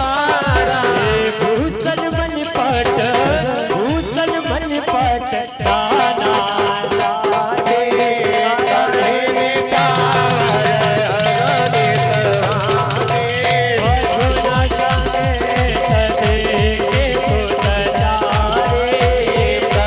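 Indian devotional folk music: a melody over a fast, even drum beat played on an electronic drum pad, with a shaker-like rattle. The drum beat drops out about six seconds in and comes back about fourteen seconds in.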